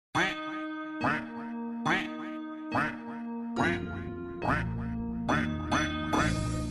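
Cheerful backing music for a children's song, with a cartoon duck sound effect quacking in time about once a second over sustained notes.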